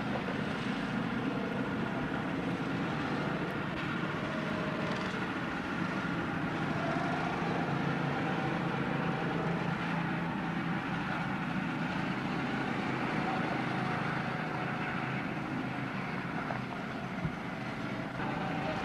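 Small go-kart engines running steadily as karts circle the track, a continuous drone whose pitch drifts a little as the karts pass.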